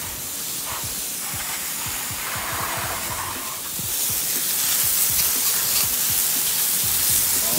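Garden hose spraying water onto live crawfish, first onto a mesh sack of them and then into a plastic basket full of them, rinsing the crawfish before the boil: a steady hiss of spray that grows louder about four seconds in.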